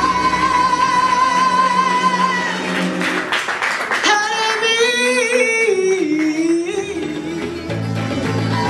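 Live Cuban band music: a woman sings a long held high note with vibrato, then a falling phrase, over acoustic guitar. Low bass notes come in near the end.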